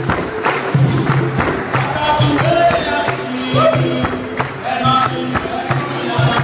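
Capoeira roda music: berimbau and pandeiro playing a steady, driving rhythm of dense strikes and jingles over a low drone.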